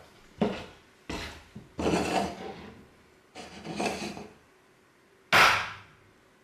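A run of knocks and short scraping clatters on a wooden table top as eggs, a plastic measuring cup and a bottle are picked up and set down, five in all, the sharpest and loudest near the end.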